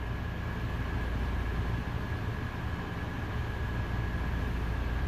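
Steady low hum and rumble, with a faint steady high whine held above it.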